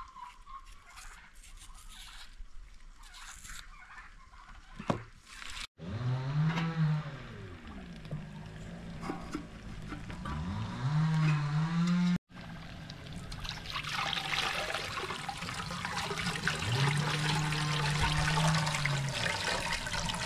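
Water poured from a tall metal jug into a samovar: a splashing pour with a low gurgling tone that glides up and down in pitch, getting louder over the last several seconds. Before it, in the first few seconds, soft knife clicks and scrapes as an onion is peeled.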